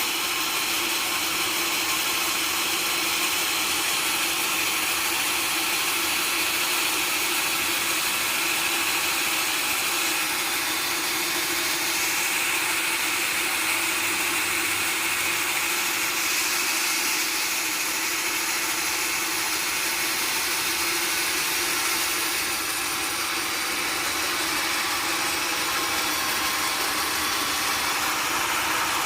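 Sawmill machinery running steadily: a continuous mechanical noise with a constant hum and no breaks.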